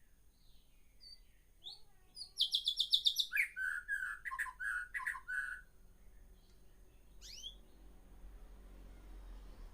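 Caged songbird singing: a few short chirps, then a fast high trill running into a lower warbled phrase, and near the end a couple of quick rising chirps.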